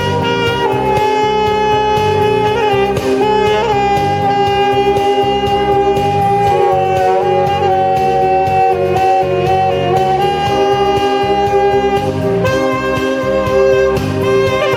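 Saxophone playing long held notes over accompaniment with a steady beat.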